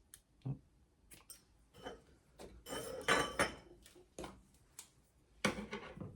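Scissors and small hard crafting items being handled on a table while frayed string is trimmed: a string of light clicks, clinks and rustles, busiest about three seconds in, with a sharp click near the end.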